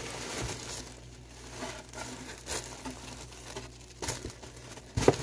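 Tissue paper rustling and crinkling as items are dug out of a gift box, with two sharper crackles about four and five seconds in.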